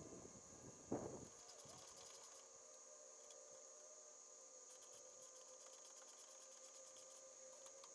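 Faint, steady high-pitched drone of cicadas. A single knock about a second in, and faint runs of clicks from a ratchet as the skid plate bolts are run back in.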